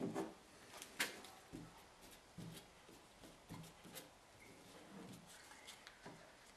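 Faint handling noises as gloved hands work a small tool over a fiberglass hull patch: a few soft knocks, taps and rustles, the sharpest at the start and about a second in.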